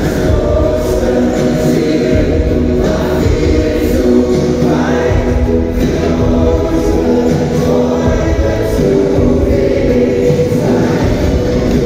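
A group of singers performing a German Schlager song together over a loud backing band, heard through the PA of a large concert hall from the audience.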